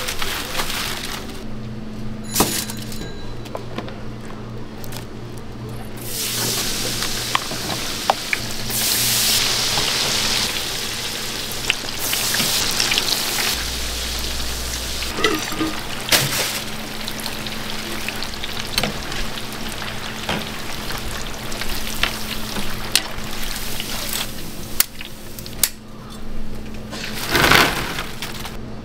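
Battered twigim frying in a pot of hot oil, a continuous sizzle, with sharp metallic clinks and rattles as the wire frying basket is tipped and knocked against wire cooling racks.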